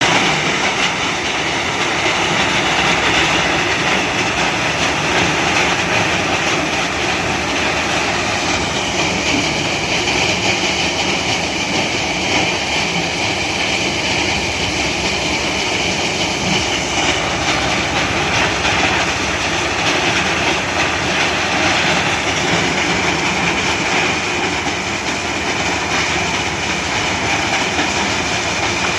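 Sand processing plant machinery running, a loud, steady mechanical din with no pauses.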